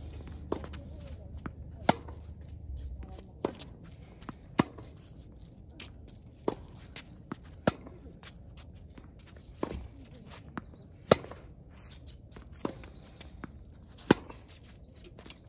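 Tennis rally: tennis balls struck by racquets and bouncing on a hard court. The sharp pops come every second or two, the loudest being the near player's strokes about every three seconds, with softer hits and bounces from the far end between.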